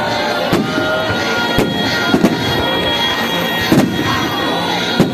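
Fireworks display: aerial shells bursting with sharp bangs every second or so, some with short gliding whistles, over music playing along with the show.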